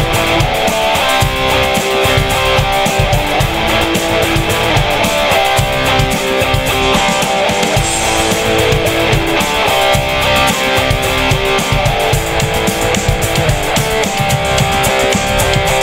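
Electric guitar playing an instrumental melody of held notes over a steady drum-kit beat.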